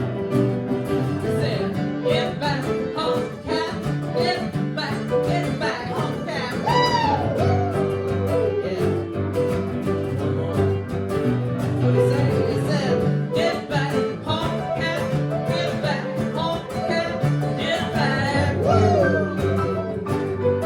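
Live band playing an upbeat piano-and-guitar rock song, with a couple of gliding, bending notes partway through and again near the end.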